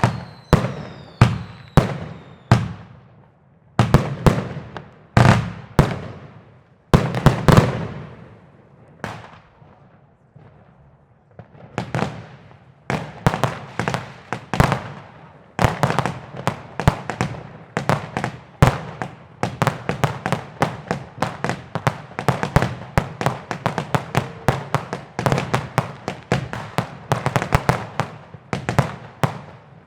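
New Year's Eve fireworks: a string of sharp bangs from rockets and firecrackers, each trailing off in an echo, with a couple of falling whistles near the start. The bangs thin out around the middle, then come thick and fast, several a second, through the second half.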